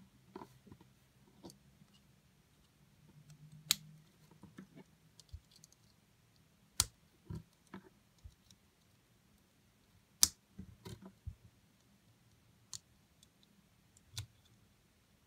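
Lego plastic parts clicking and tapping as tyred wheels are handled and snapped onto a small car's chassis: a handful of sharp clicks, the loudest about ten seconds in, with softer taps between.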